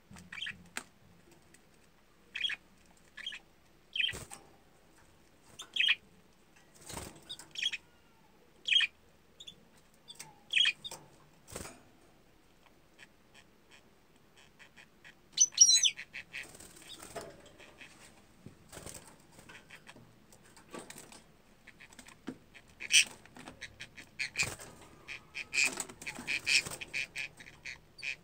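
Budgerigars chirping: short single chirps about once a second, then a loud warbling call with quick rising and falling sweeps, and near the end fast, dense chattering. A few sharp knocks come in between the calls.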